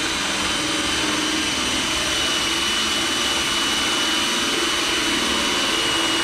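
Cordless drill running steadily at full speed with a high whine, driving a small hole saw through a fiberglass car bumper.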